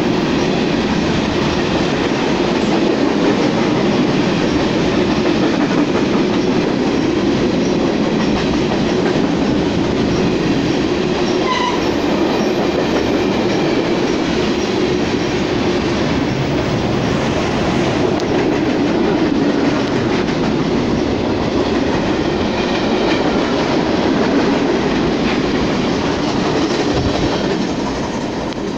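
Norfolk Southern freight train rolling past close by: a steady, loud rumble of freight-car wheels on the rails that eases off near the end as the last cars go by.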